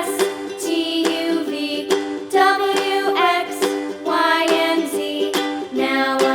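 Background music: plucked ukulele-style accompaniment with a sung or melody line over it, in a light children's-song style.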